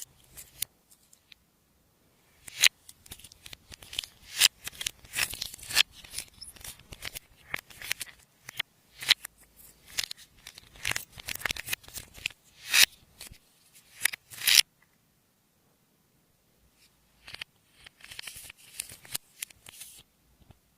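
Slime being kneaded and stretched by hand, giving quick runs of sticky popping and crackling clicks. There is a long spell of handling, a pause of a couple of seconds, then another short spell near the end.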